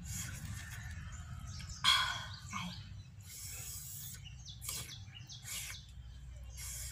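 A person repeatedly sucking air in through the teeth in short hissing breaths to cool a mouth burning from spicy food, while birds chirp.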